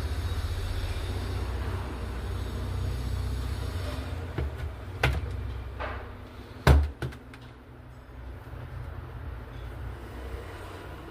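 A few sharp clicks and knocks of hands handling a laptop and its power lead on a bench, the loudest about two-thirds of the way through, over a low steady rumble that fades after about four seconds.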